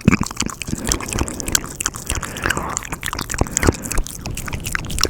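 ASMR mouth sounds close to a sensitive microphone: wet lip smacks, tongue clicks and pops in a dense, irregular run.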